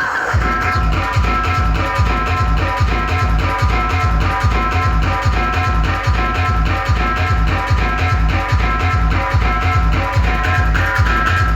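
Loud music played through a DJ sound system, with a heavy bass beat repeating evenly under a sustained melody.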